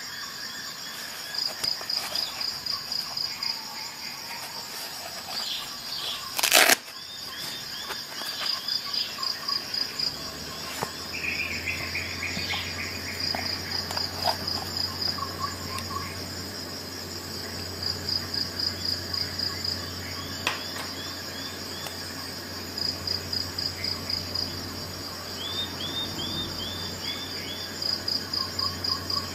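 Insects chirping in high, evenly pulsed trills that repeat in runs. There is a single sharp click about six and a half seconds in.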